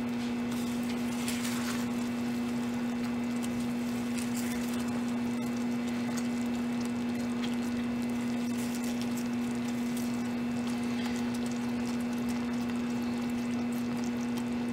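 Hot caramel sauce softly bubbling and crackling as a silicone spatula stirs a melting pat of butter into it, over a steady low hum.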